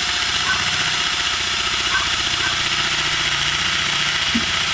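Cordless drill/driver running steadily under load, a spade bit boring into a hard oak log. The bit is one the driller reckons is worn out, so it cuts slowly.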